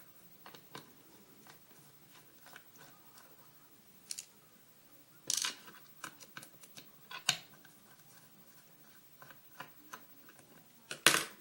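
Small metallic clicks and clacks as a Phillips screwdriver is used on a Schlage lock cylinder to take off its tailpiece. A few sharper clacks come about five seconds in, about seven seconds in and near the end.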